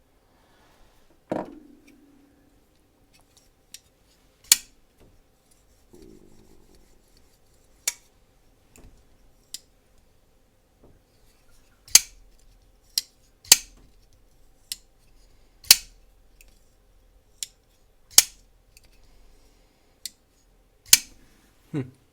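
Holt Haptic folding knife being flipped open and shut over and over, the blade snapping out with sharp metallic clicks every one to three seconds, its freshly reassembled pivot and lubed detent being worked in. A duller knock about a second in.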